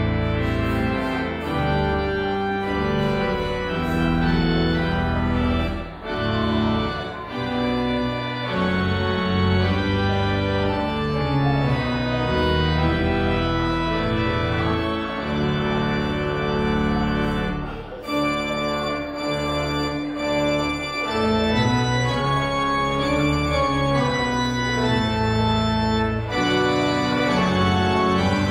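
Church pipe organ playing the postlude after the benediction: full sustained chords over a deep bass line, with the harmony changing about once a second and two brief breaths in the sound, about six seconds in and again past the middle.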